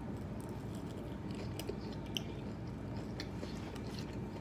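A person chewing a fried chicken nugget, with a few faint wet mouth clicks over a steady low background hum.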